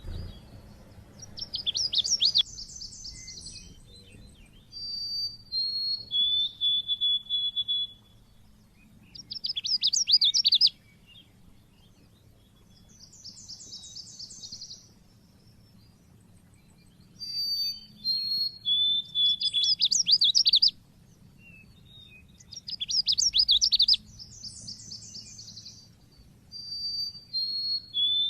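Pleci (white-eye) singing in the sharp 'cit keres' style: phrases of high, rapid chirping trills mixed with short clear whistled notes, separated by pauses of a second or two.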